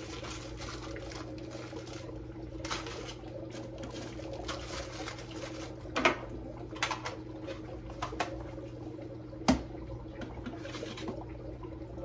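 Plastic rustling and handling noise as the parts and media bags of a Fluval 307 canister filter are unpacked. A few sharp clicks or knocks come through, the loudest about six and nine and a half seconds in, over a steady low hum.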